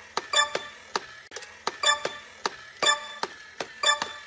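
Clock-like ticking: sharp ticks with a short bright ring on the strongest ones, which come about once a second, with lighter ticks between them.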